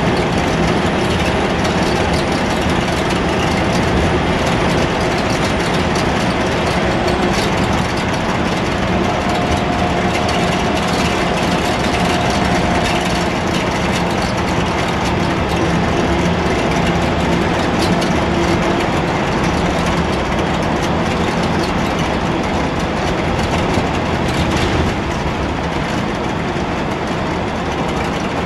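Scania L94UB bus engine and road noise heard from inside the cabin of the moving Wright Solar bus: a steady rumble with faint engine tones that rise in and fade out as it drives.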